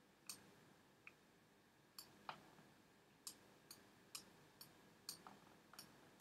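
Computer mouse button clicking, about ten faint, sharp clicks at irregular intervals, as the spot healing brush is dabbed onto spots one click at a time.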